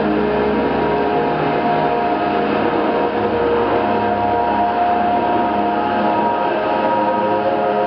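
Live ambient drone music from synthesizers: a steady, dense wash of held tones over a bed of hiss, with some tones slowly fading in and out.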